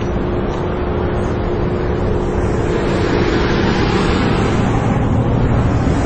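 Steady outdoor traffic roar with a low rumble and a faint steady hum, swelling about halfway through as a vehicle goes by.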